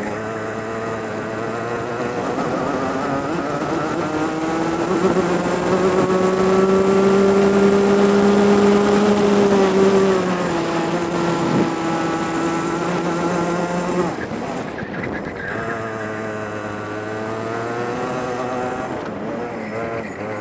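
Onboard sound of a DMAX racing kart's two-stroke engine at speed on a lap. The revs climb steadily for several seconds and then fall back about halfway through. They hold, drop sharply a few seconds later, and build again towards the end.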